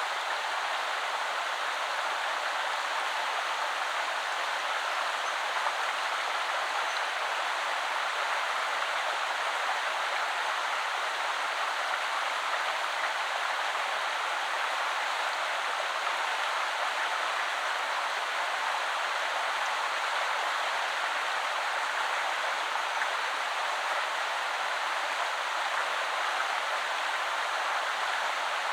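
A woodland river flowing: a steady, even rush of running water with no single splash or event standing out.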